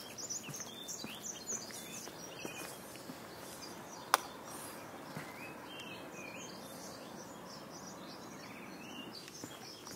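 Birds chirping and calling again and again over a steady outdoor background hiss, with one sharp click about four seconds in.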